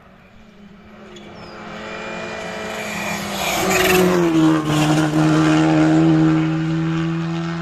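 Rally car approaching at speed and passing close by. Its engine note grows louder, drops in pitch as it goes past about four and a half seconds in, then fades as it drives away.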